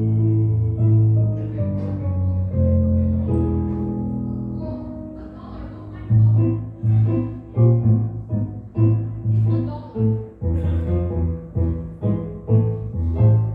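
Nord Electro 6 stage keyboard playing an instrumental passage: held chords over a low bass note, then, about six seconds in, short rhythmic chords with a strong bass roughly twice a second, which stop near the end.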